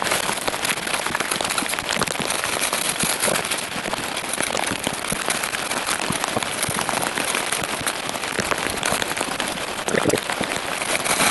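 Heavy rain falling steadily, with many small drops striking close by and a few louder knocks about ten seconds in.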